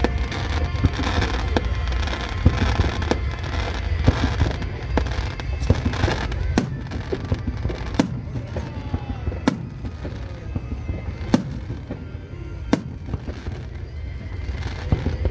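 Fireworks going off in a dense display: sharp bangs about once a second over a continuous low rumble of bursts, with music playing alongside.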